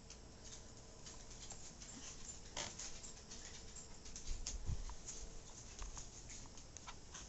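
Scattered light clicks and taps of a dog's nails on a wooden floor as she walks, with a low thump of the camera being handled about four and a half seconds in.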